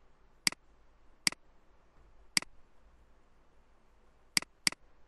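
Computer mouse button clicking five times at uneven intervals, the last two in quick succession.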